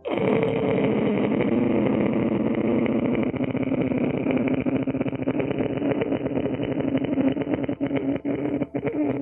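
A long in-breath drawn through a narrowed throat with a loud rattling, snore-like flutter, as in ujjayi pranayama breathing with sound on the inhale. It breaks up briefly a few times near the end.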